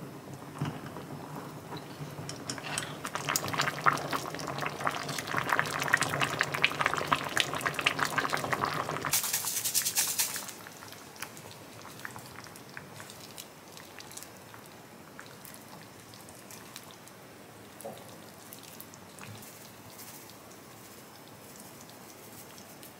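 Food bubbling and crackling in a hot pan for about nine seconds, ending in a brief louder hiss. After that only faint scattered ticks remain.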